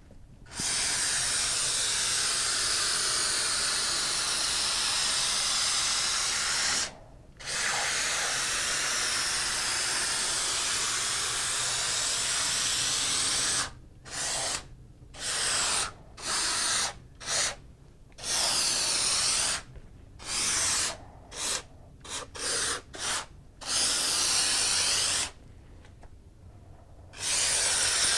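Two-component spray foam gun (Dow Froth-Pak kit) spraying foam insulation: a loud hiss from the pressurized nozzle, first in two long passes of about six seconds each, then in a string of short trigger pulls, with a pause of about two seconds near the end before a last burst.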